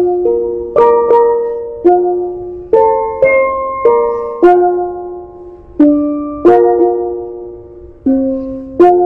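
A pair of steelpans played with two sticks, picking out a melody. Notes are struck about once or twice a second, often two or three together, and each rings out and fades before the next.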